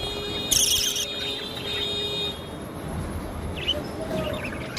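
Budgerigar chirping: a loud burst of high chirps about half a second in, then fainter chirps near the end.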